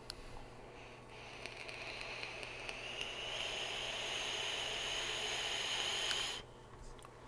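Box-mod vape firing during one long draw: a hiss from the coil and the air pulled through it, with a faint whistle that rises slightly in pitch. It grows louder for about five seconds, then cuts off suddenly near the end.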